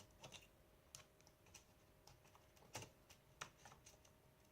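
Faint, irregular light clicks and taps of a laptop heatsink and small parts being handled and seated in an open laptop, about half a dozen over a few seconds.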